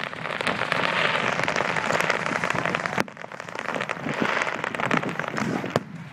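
Fireworks crackling: a dense, rapid patter of tiny pops that breaks off abruptly about three seconds in, then builds again and drops near the end.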